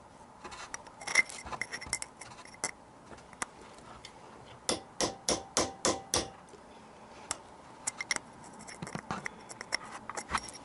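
A hammer taps a chisel against a seized screw on the intake flange of a Yamaha XJ900S Diversion engine to work it loose. Sharp metallic strikes come in a quick run of about seven near the middle, with scattered lighter clicks and clinks either side.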